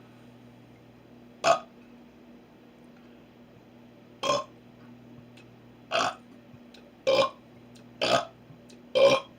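A person burping on purpose six times in short, separate bursts: one alone about a second and a half in, then five more coming faster, roughly one a second, toward the end.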